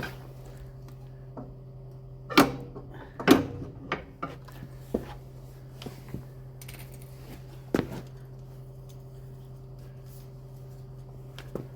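Scattered metallic clinks and knocks of tools and parts being handled, the loudest about two and a half, three and a half and eight seconds in, over a steady low hum.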